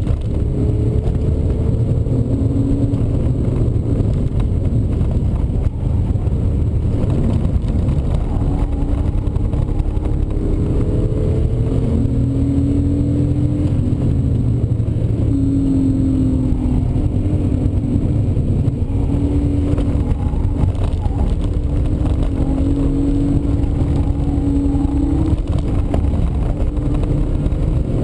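BMW E36 320i's 2.0-litre straight-six heard from inside the cabin at track pace, its revs climbing and dropping again and again through gear changes and corners, over a heavy low rumble of road and wind noise.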